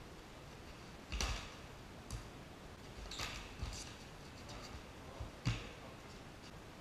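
Irregular slaps and thuds of punches and kicks landing on padded gloves and shin guards in sparring, about six hits in all. The sharpest come about a second in and about five and a half seconds in.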